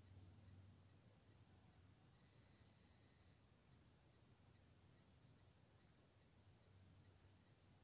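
Near silence: faint room tone with a steady high-pitched whine and a low hum.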